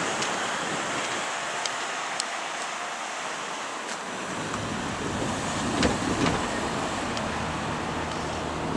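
Steady road traffic noise with a few faint clicks, swelling briefly about six seconds in as a vehicle passes.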